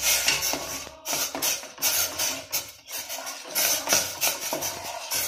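Metal spoon stirring and scraping against the inside of a steel pot of milk, in repeated scraping strokes, as kulfi mix powder is tipped in from a steel bowl.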